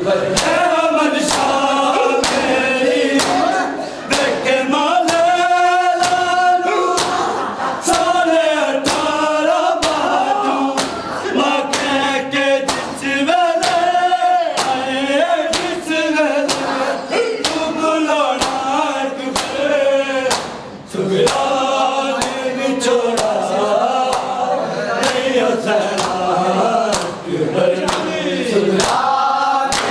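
A group of men chanting a noha (mourning lament) together, with loud hand-slaps of matam chest-beating keeping a steady beat about once a second.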